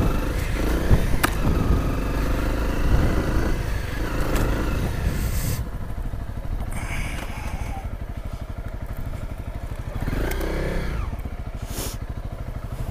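Honda CRF250L dual-sport bike's single-cylinder four-stroke engine running steadily on a muddy trail, with a sharp knock about a second in and clatter from the bike over rough ground. The engine revs up briefly about ten seconds in.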